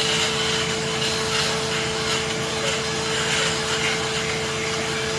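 Tree-removal power equipment running steadily at constant speed: a loud, even machine noise with a steady whine, no revving or pauses.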